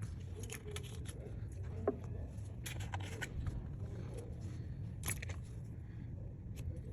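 Scattered light clicks and taps of small tools handling a solder-ball reballing stencil and chip, irregularly spaced with a slightly louder click about two seconds in and a cluster around five seconds, over a steady low hum.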